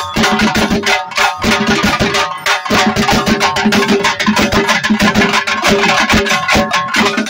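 Nayandi drum band playing: dappu frame drums and smaller drums beaten in a fast, dense rhythm, loud, with a steady pitched tone sounding over the beat.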